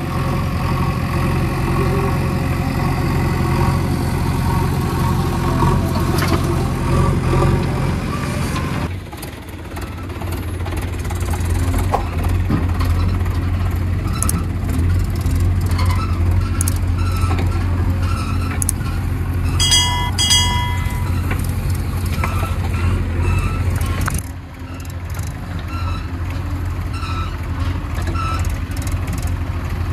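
Diesel engines of a JCB 3DX backhoe loader and farm tractors running steadily. The sound changes abruptly twice. Two short beeps come about two-thirds of the way through.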